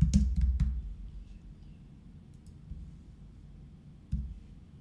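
Computer keyboard typing: a few last keystrokes in the first second, then quiet, with a single click about four seconds in.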